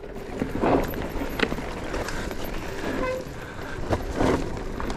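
Mountain bike riding over a rough, loose trail: steady tyre and wind noise with a few sharp knocks from the bike.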